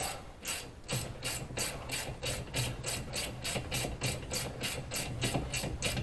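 Hand ratchet clicking in a steady train of quick strokes, about three to four clicks a second, as it is worked back and forth on a nut.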